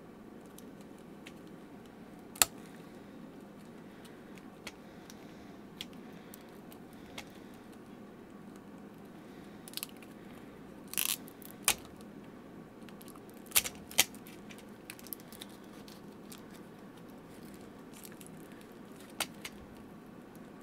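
Hobby knife picking and cutting at tape wrapped around a circuit board: about a dozen sharp clicks, ticks and small crackles of tape tearing, spaced irregularly over a faint steady hum.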